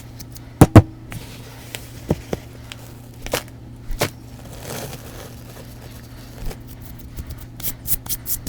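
Pressed blocks of Bon Ami cleanser powder crunching and crumbling as they are crushed, in scattered sharp crunches, the loudest pair under a second in, with a quick run of crackles near the end.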